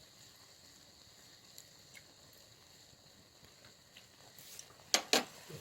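Ramen broth boiling in a frying pan, a faint steady bubbling hiss. Near the end come two sharp knocks in quick succession.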